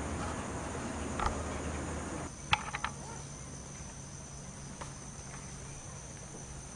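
Crickets chirring in a steady high-pitched trill. A few sharp clicks sound over it, three close together about two and a half seconds in.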